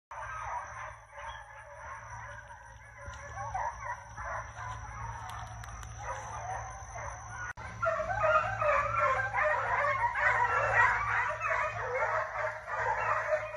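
A pack of young foxhounds baying together as they run, many overlapping calls, getting louder from about halfway through.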